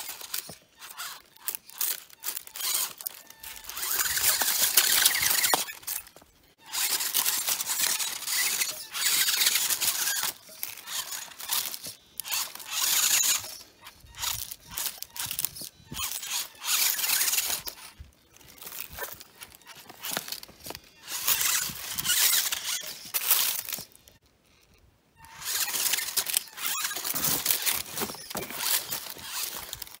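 Small RC rock bouncer's electric motor and gears whining in repeated bursts of throttle, a second or two at a time, as the truck climbs over stones, with the tyres and chassis scraping on the rock. A short pause about three quarters of the way through.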